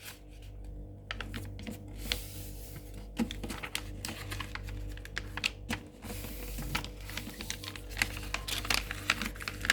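A sheet of paper being folded and creased by hand: irregular crinkles and taps.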